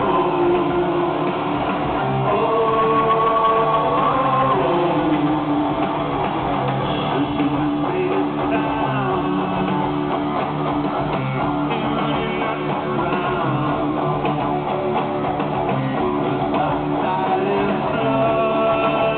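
Rock band playing live: electric guitars, drums and a singer.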